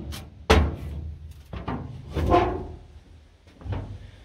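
Boots stepping on the rusted steel floor plates of an old steam locomotive's cab: about four heavy, hollow metal thuds, one ringing briefly about two seconds in.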